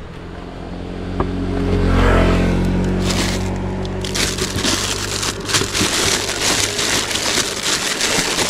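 A vehicle engine hum swells and fades over the first few seconds. From about three seconds in, plastic packaging crinkles and rustles continuously as wrapped items are rummaged through in a motorcycle top box.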